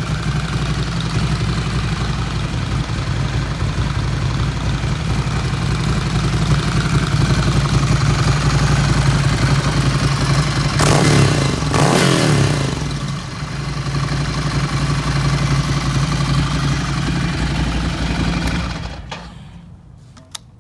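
Ducati Scrambler Desert Sled's air-cooled L-twin engine, breathing through a Zard Zuma slip-on exhaust with the catalytic converter removed, running steadily. It is blipped twice in quick succession about halfway through, the revs rising and falling each time. Near the end the engine is shut off, and a couple of short clicks follow.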